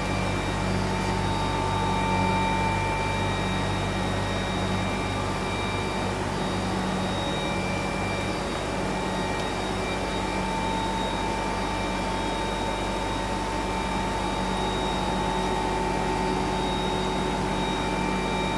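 Steady electric hum and hiss of the fish-room's aeration and water-pump equipment, with faint high tones that come and go.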